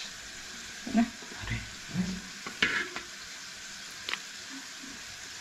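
Metal ladle stirring and scraping in a dish of crumbled bread and liquid, with several short clicks and knocks against the enamel dish, over a steady sizzle of frying.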